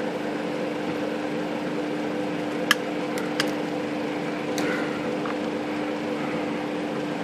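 A steady low hum runs throughout. Over it come a few sharp clicks about three to four and a half seconds in: a screwdriver working the back-panel screws of a Royal Futura 800 typewriter.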